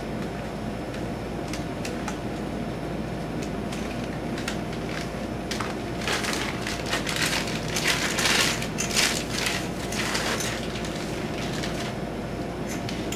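Plastic bag crinkling and rustling as it is worked open and pulled off a long metal pump. Scattered small clicks at first, then dense crinkling through the middle of the stretch.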